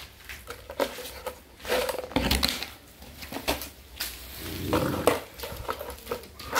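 Young puppies and their mother dog making short, scattered vocal sounds, with a few sharp clicks in between.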